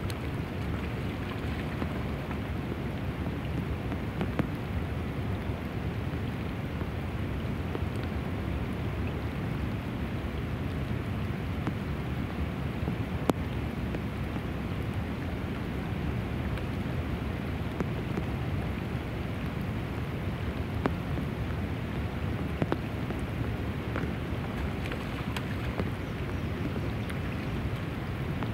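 Steady rain falling on the river and the bank, with a few scattered sharp ticks of single drops.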